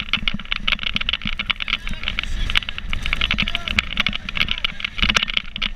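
Water splashing and spraying with wind rushing at speed on an inflatable towable boat, a rumbling engine underneath.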